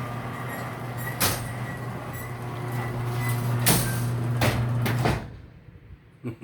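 Sectional garage door travelling on its track, driven by a steadily humming electric motor, with several sharp clunks as it moves. The motor cuts off suddenly about five seconds in, then a few faint knocks follow.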